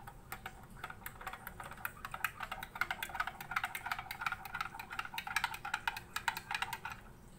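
A spoon stirring cold water into a glass of raw-mango sharbat, clinking rapidly against the glass with many quick ticks a second. The stirring starts just after the beginning and stops shortly before the end.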